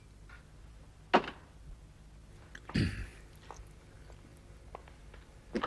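A few separate clinks and knocks of a glass liquor bottle and a brandy snifter being handled at a drinks tray: a sharp clink about a second in, a duller knock near three seconds, and another sharp knock at the end.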